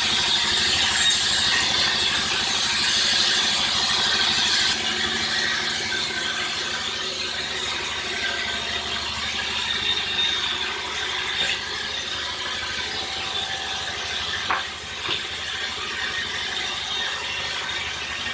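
Sawmill machinery running steadily, with two sharp knocks about three-quarters of the way through.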